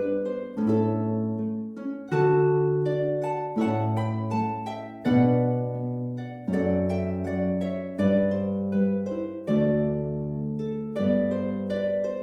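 Background music of plucked strings: slow arpeggiated chords, a new chord struck about every one and a half seconds and each dying away before the next.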